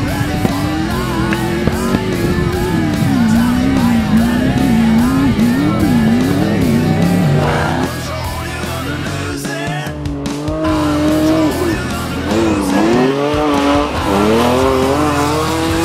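Off-road race trucks' engines revving hard, the pitch swinging up and down repeatedly through acceleration and shifts, over background rock music.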